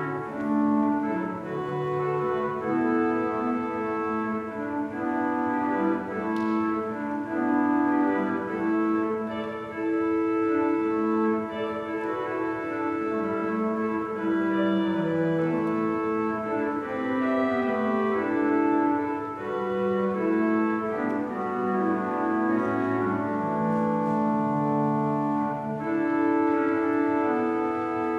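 Church organ playing a slow piece in sustained chords, several notes held together and changing every second or two.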